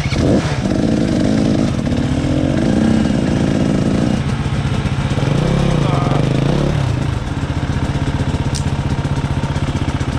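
Dirt bike engines idling steadily, with the bike ahead revving up and down in three bursts during the first seven seconds as it is worked past a tree at low speed.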